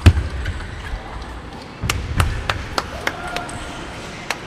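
Table tennis rally: a heavy thud at the start, then from about two seconds in a quick run of sharp clicks, about three a second, as the ball strikes bats and table, with low thumps of footwork and a brief squeak.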